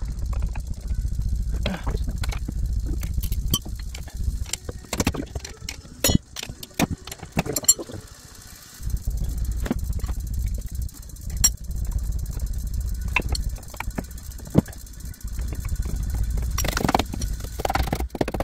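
Metal tools and car parts clinking and knocking in scattered short strikes, over a low rumble that comes and goes in stretches of a few seconds.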